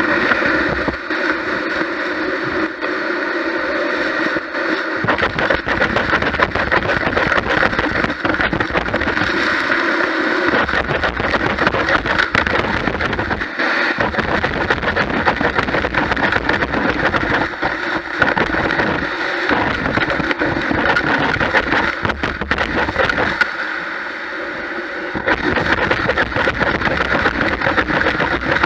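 Gutter vacuum running steadily, its nozzle on the pole sucking moss and debris out of a roof gutter, with crackles as debris is pulled into it.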